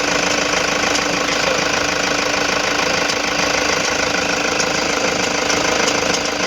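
Toyota HiAce Grandia van's engine running steadily with the air-conditioning on, with a clicking sound that the mechanic traces to a fault in the A/C compressor.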